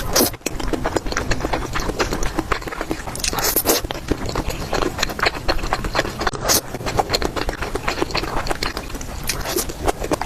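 Close-miked eating sounds: rapid wet chewing and mouth clicks, with a few louder, longer hissy bursts such as slurping about three and a half seconds in and again later.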